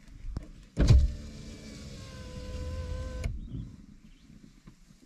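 Car's electric window motor running for about two and a half seconds: a click, a loud thump as it starts about a second in, then a steady hum that sags slightly in pitch, ending with a sharp knock as it stops.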